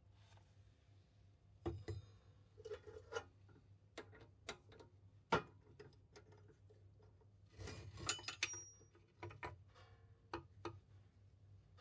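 Scattered light clicks and clinks of hand work at a drill press: a twist drill bit handled at the chuck and a perforated steel bracket set down on a wooden block. One sharper knock comes about five seconds in, and a cluster of clinks with a short metallic ring comes near eight seconds, over a faint steady low hum.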